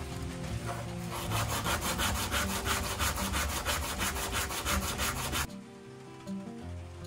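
A small wooden block hand-sanded with sandpaper in quick back-and-forth rubbing strokes, about eight a second. The strokes start about a second in and stop suddenly a little past the middle.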